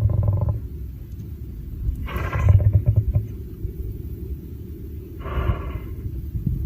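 A lion sneezing: a sharp, explosive burst about two seconds in and a second, shorter one a little after five seconds, over a low rumble.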